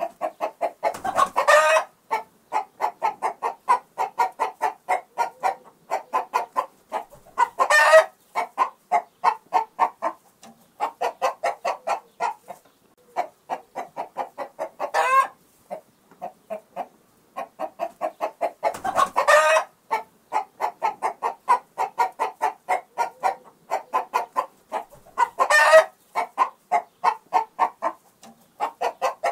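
Chickens clucking: rapid runs of short clucks, broken about five times by a louder, rising squawk. The same stretch recurs about 18 seconds on, as a looped recording would.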